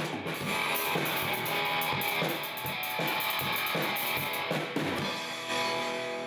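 Music with guitar and drum kit playing a steady beat, ending on a held chord that fades out near the end.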